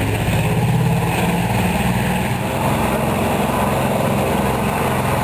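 The twin radial piston engines and propellers of a de Havilland Canada DHC-4 Caribou running steadily with a low, pulsing beat as the aircraft lands.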